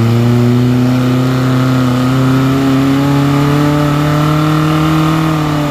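Off-road 4x4's engine revving hard and held at high revs, its pitch climbing slowly and steadily.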